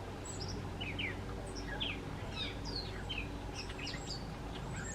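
Small birds chirping: many short, high chirps and quick up-and-down notes from several birds, overlapping and scattered throughout, over a low steady hum.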